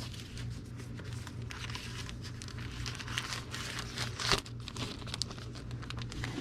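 Pink plastic anti-static bag crinkling and rustling as a computer graphics card is slid into it and the bag is handled, with a sharp click about four seconds in.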